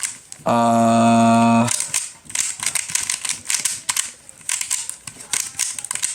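Rubik's speed cube being turned fast, its layers clicking rapidly and unevenly. About half a second in, a loud steady buzzing tone sounds for just over a second.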